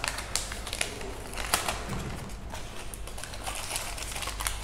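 Paper sleeve and gold foil wrapper of an Amul dark chocolate bar being unwrapped by hand: irregular crinkling and crackling, loudest about one and a half seconds in.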